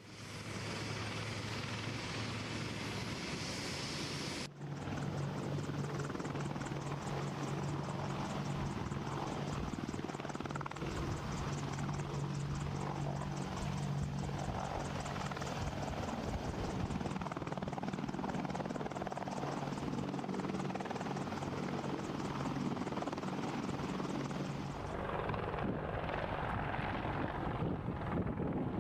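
AH-64 Apache attack helicopter running steadily, a continuous rotor and turbine noise over a low steady hum, with a brief sharp dip about four and a half seconds in.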